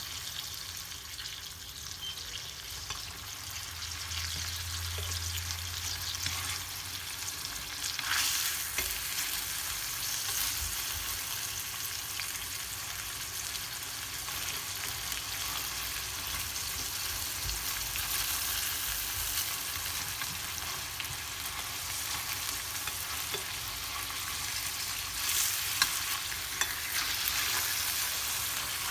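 Skin-on chicken sizzling steadily as it pan-sears in oil in a stainless steel skillet. A few sharper clicks come through, about a third of the way in and again near the end, as chopsticks turn the pieces against the pan.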